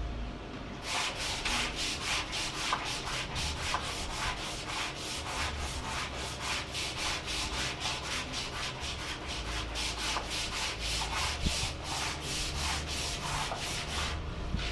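Hand sanding in quick back-and-forth strokes, about four a second. The strokes start about a second in and stop near the end.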